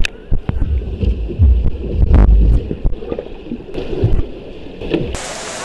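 Muffled underwater sound of a swimmer stroking past, with uneven low rumbling surges, a few clicks and bubbling. About five seconds in it cuts to a steady hiss above the water.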